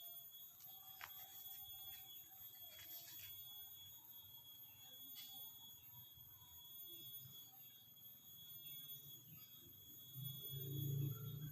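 A faint, steady high-pitched whine with a few soft clicks, and a low rumble near the end.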